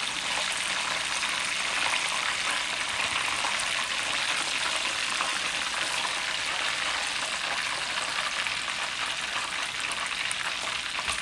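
Breadcrumb-coated chicken pieces frying in hot oil in a pan: a steady, dense sizzle and crackle. The oil is up high, hot enough to darken the breading.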